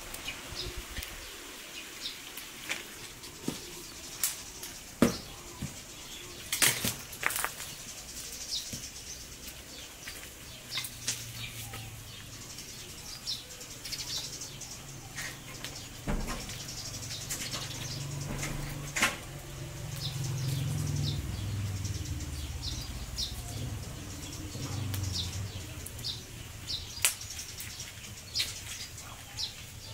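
Open wood fire crackling, with sharp pops and snaps scattered irregularly through it. A low steady rumble swells in the middle stretch and fades again.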